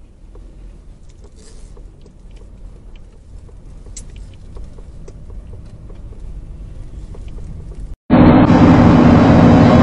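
Faint, steady low road and engine rumble heard from inside a moving car, with a few light clicks. A little after eight seconds in it cuts to a much louder, steady engine drone with a strong low hum.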